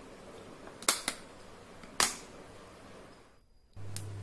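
Sharp plastic clicks from handling a glass food container with a snap-lock lid: a quick pair, then one more about a second later. Near the end a steady low hum starts.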